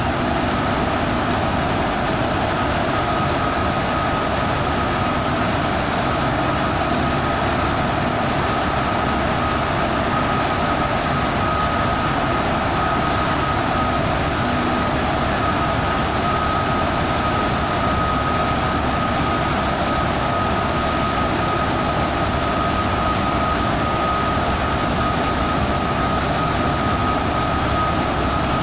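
Steady running noise heard from inside a bus moving through a road tunnel: engine and tyre noise that the tunnel walls make into a continuous roar. A steady high whine joins in about three seconds in.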